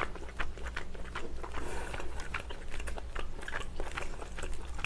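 A person chewing a mouthful of food, with a run of short wet clicks and smacks from the mouth.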